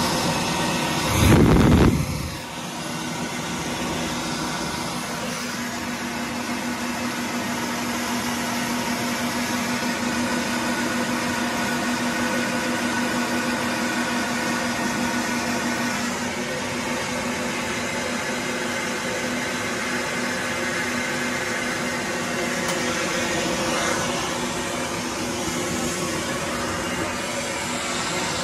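Flow bench running steadily, air rushing through a single exhaust port and header tube at about 226 CFM, with a steady hum under the rush. A brief loud low rumble comes about a second in.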